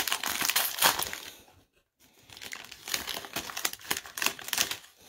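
Foil wrapper of a Panini Obsidian basketball card pack crinkling as it is pulled off the cards and crumpled by hand, in two bouts with a short pause about one and a half seconds in.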